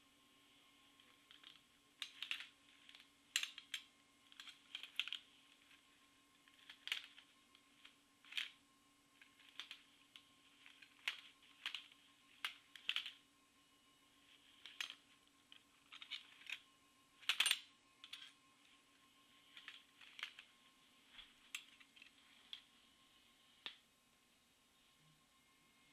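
Metal blades of a Freddy Krueger replica claw glove clinking against each other as the fingers move, in short, irregular clicks about once a second. The loudest cluster of clinks comes a little past the middle.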